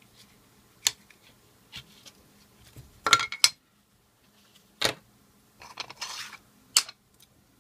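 Clear hard-plastic case being opened and handled: a few sharp plastic clicks and clacks, the loudest a quick cluster of knocks partway through, with a short scraping rustle near the end.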